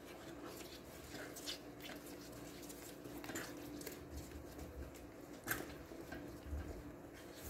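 Silicone spatula stirring melting chocolate and cream in an electric rice cooker's pot: faint, soft scraping and squishing, with a few brief scrapes standing out, over a faint steady hum.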